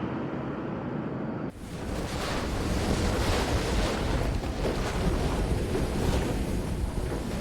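Strong wind gusting and buffeting the microphone. It is duller and quieter for about the first second and a half, then cuts to louder, fuller wind noise.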